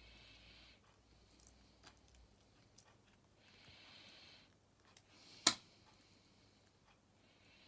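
Faint clicks and small plastic rattles from an opened correction tape roller being handled, its gears and tape spool worked by the fingers. One sharp plastic click stands out about five and a half seconds in.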